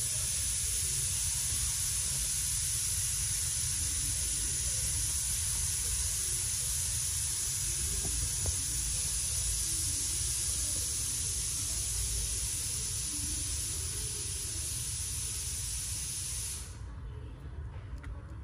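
A steady, even hiss that starts suddenly and cuts off sharply near the end, over a low rumble.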